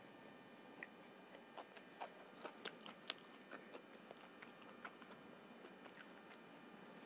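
Close-miked chewing of a mouthful of homemade vegetable pizza: a run of small crisp crunches and wet mouth clicks, thickest two to three seconds in and thinning out after about five seconds.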